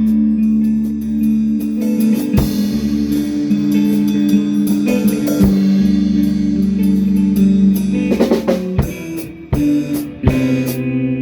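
Instrumental band music: guitar and bass holding long notes over a drum kit, breaking into a run of sharp, separated drum hits about eight seconds in.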